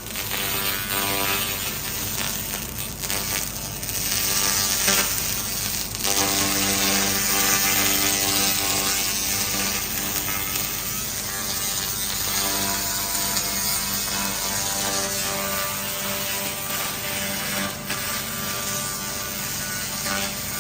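Handheld laser cleaning machine running continuously on rust: a steady buzzing rattle with a constant hum underneath.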